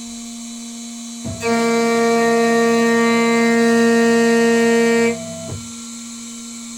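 A CNC spindle spins a 6 mm end mill with a steady hum. About a second in, the cutter bites into the workpiece and gives a loud, steady pitched cutting whine. After about four seconds it stops and only the spindle hum is left.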